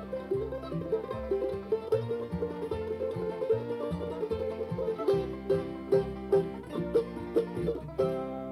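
Bluegrass music with banjo picking played back from a cassette tape. The tune ends on a final chord about eight seconds in that rings out and fades.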